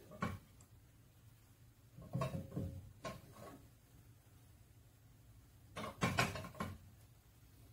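A glass saucepan of sugar and water knocking and scraping on a gas stove's metal grate as it is handled and stirred with a silicone spatula: short clatters about two and three seconds in, and a longer one about six seconds in as the pan is set back on the grate.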